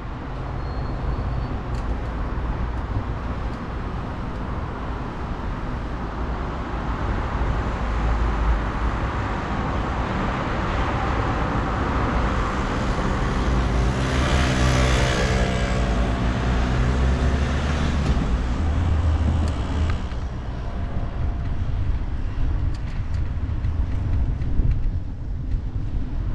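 Road traffic noise with a steady low rumble, and a motor vehicle passing close about halfway through, its engine note swelling and then fading.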